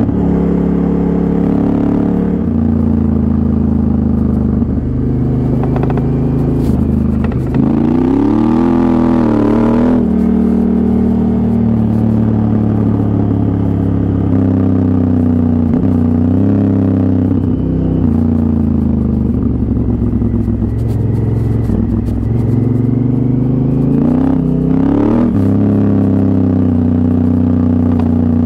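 Honda Africa Twin CRF1000L's parallel-twin engine running while riding on gravel, its revs stepping between gears and climbing in a few sweeps as the bike accelerates.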